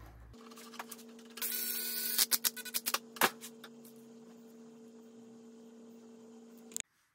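Small metal parts being fitted together by hand: a short scraping rasp, then a quick run of light clicks and clinks as a brass ring and a steel wall bracket are handled. A steady electrical hum runs underneath and stops abruptly near the end.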